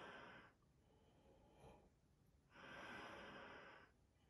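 Faint breathing through a Scott FRR gas mask and its filter: one breath fading just after the start and another, over a second long, starting about two and a half seconds in.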